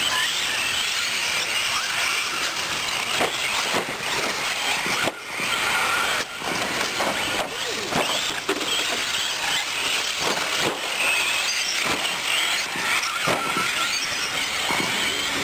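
Several 1/10-scale electric 4WD short course RC trucks racing on dirt: a high-pitched whine from their motors and drivetrains that swells and fades as they pass, with short knocks from landings and hits scattered through.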